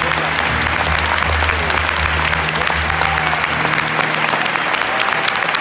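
Large concert audience applauding, a dense wash of many hands clapping, over a low held note from the stage that stops about four seconds in.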